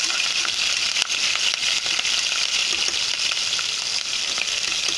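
Cumin seeds and chopped green chillies sizzling steadily in hot oil in an aluminium pressure cooker, stirred with a steel spoon, with scattered crackles and a sharp click about a second in.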